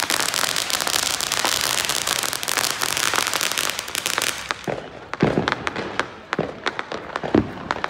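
Fireworks going off on the ground: a dense, rapid run of crackling pops for about four seconds, then thinning out into scattered, louder single pops and bangs.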